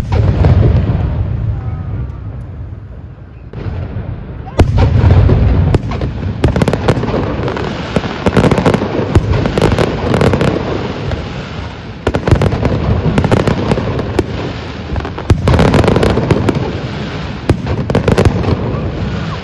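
Aerial fireworks display: repeated deep booms of shells bursting, each with a long rumbling tail, mixed with runs of rapid sharp crackling.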